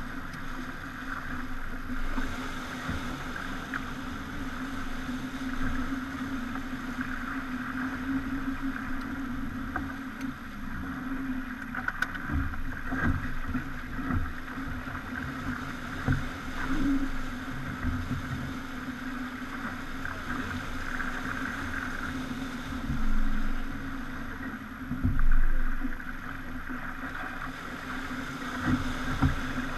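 Pogo 30 yacht under way: a steady drone with rushing water noise, broken by irregular low thumps and two louder surges near the end.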